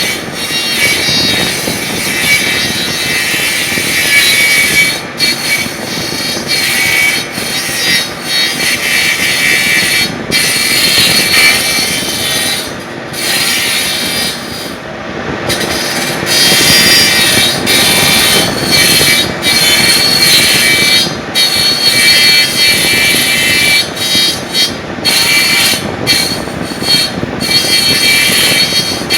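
Copy wood lathe running while its cutter turns a wooden baluster: a steady machine noise topped by a harsh, high cutting hiss that breaks off briefly every few seconds.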